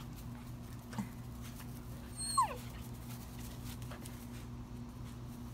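A puppy gives one short, high whine that falls in pitch, about two seconds in, over a steady low hum.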